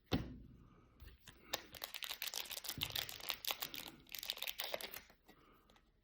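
Trading cards and their pack being handled close up: a sharp thump at the start, then a few seconds of fast crinkling and clicking as the pack is opened and the cards are flicked through.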